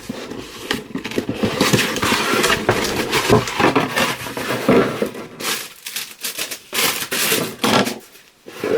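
Cardboard mystery box and its packing being handled and opened by hand: irregular rustling, scraping and crinkling.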